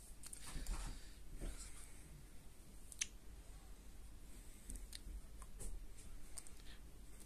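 Faint scattered clicks and light rustling in a small, quiet room, with one sharper click about three seconds in and a few more near the end.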